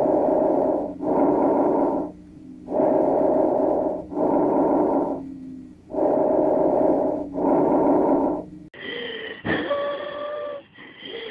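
Recorded lung sounds: three full breaths, each a noisy inhale and exhale of about a second. About nine seconds in, a different recording begins with wheezes: several high, steady whistling tones sounding through the breath.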